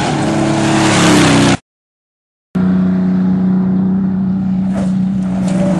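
Engine of an off-road desert race vehicle running, its pitch rising about a second in. The sound cuts out completely for about a second, then a steady engine note returns.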